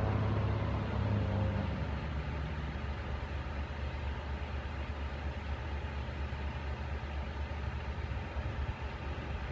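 Heavy vehicle engine running at a distance: a pitched engine hum fades out over the first two seconds, leaving a steady low rumble.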